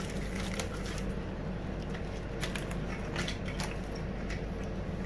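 Soft rustling and scattered light clicks of paper food wrappers being handled, over a steady low hum.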